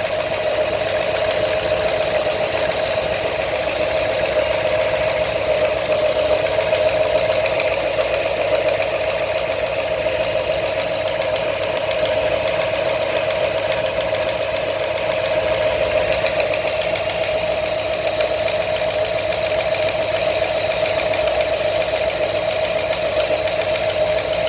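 New 347 V8 crate engine running steadily with a rapid, continuous knock. The owner reports the knock as a fault in the new engine.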